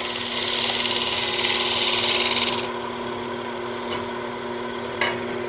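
Wood lathe running with a steady hum while a carbide cutter on a boring bar takes a light finishing cut across the inside bottom of the turned vessel: a hiss of shearing wood for about two and a half seconds that then stops. A short click about five seconds in.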